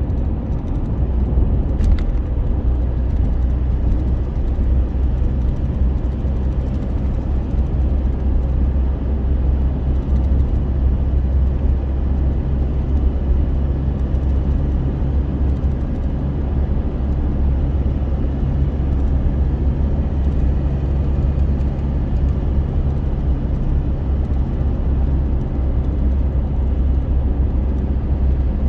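Steady, loud low rumble of a running motor, with no pauses or changes in pitch.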